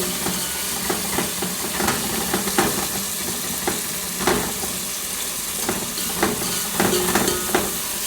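Tomatoes, capsicum and onions frying and sizzling in a cooking pot while being stirred. A utensil scrapes and knocks against the pot in frequent short clicks over a steady sizzle.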